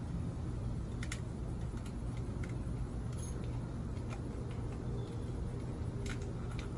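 Scattered small clicks and rattles of grill parts being handled during assembly, over a steady low hum.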